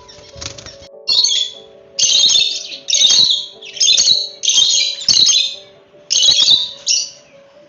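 Domestic chicken chicks peeping loudly, about eight shrill calls in quick succession, each under half a second long.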